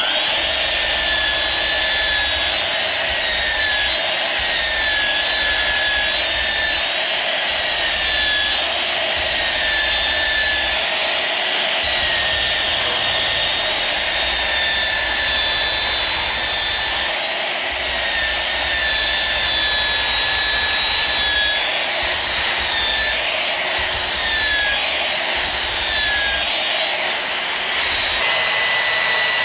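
Electric belt sander switched on and sanding a high-temp tooling board canopy plug, its motor whine dipping in pitch again and again as it is pressed into the work and recovering between passes.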